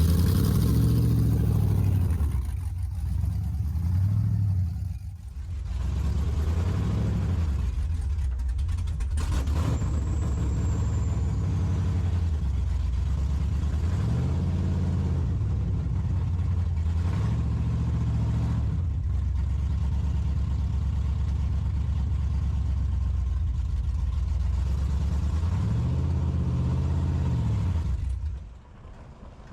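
Second-generation Chevrolet Camaro's engine on a short test drive, revving up and easing back off several times, with the engine sound stopping shortly before the end.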